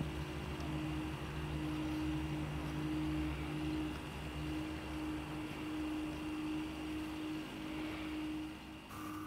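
Small electric drive motor of a model chairlift running, a steady hum with a few held tones.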